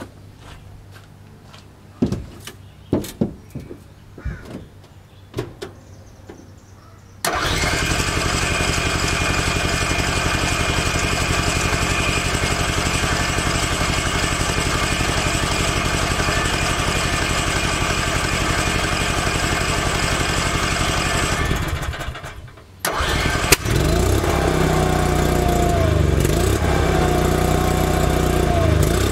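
A few scattered knocks, then the Onan RV generator is cranked over for about fifteen seconds without catching, a slow start from lost fuel prime. After a brief pause it cranks again and catches, running with a pitch that wavers as it settles.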